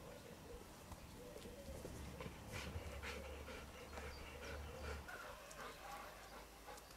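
Faint sounds of a dog digging into turf for moles: paws scratching at the soil, with panting and sniffing. A low rumble runs through the middle few seconds.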